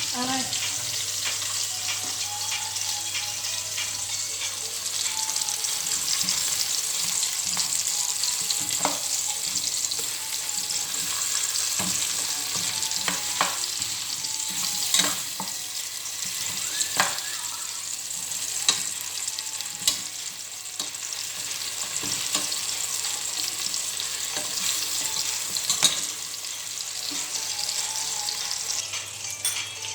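Potato pieces frying in hot oil in a pan: a steady sizzle, with occasional sharp clicks.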